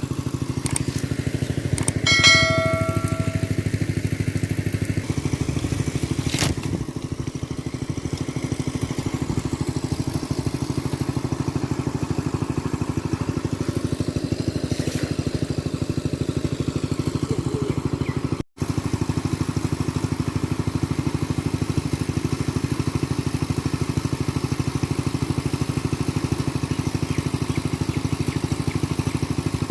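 A small engine running steadily at an even speed, with a brief high pitched tone about two seconds in.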